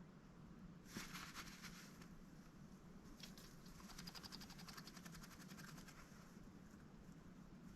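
Faint, fast clicking and rustling from a mallard duck working its bill: a short burst, then a longer even run of rapid clicks, over a steady low room hum.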